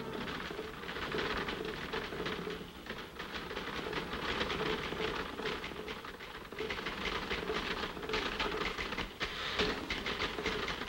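Manual typewriters clattering in quick, irregular keystrokes over a steady hum.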